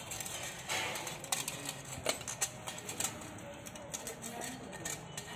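Irregular small clicks and scratches of a coiled heating-element wire being pressed by hand into the grooves of a ceramic heater plate.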